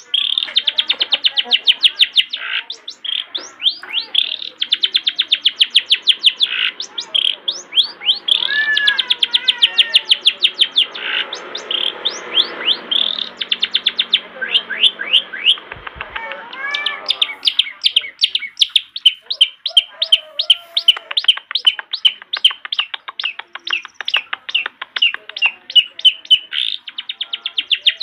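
Long-tailed shrike (cendet) singing a loud, fast chatter of sharp repeated notes, several a second. Partway through it breaks into a stretch of softer, more varied warbling before the rapid chatter resumes.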